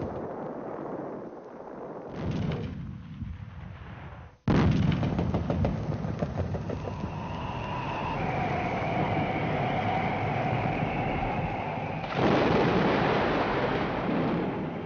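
Battle sound on an old wartime newsreel soundtrack: gunfire and artillery fire, jumping suddenly louder about four and a half seconds in. A slowly falling whine runs through the middle, and the firing grows louder again near the end.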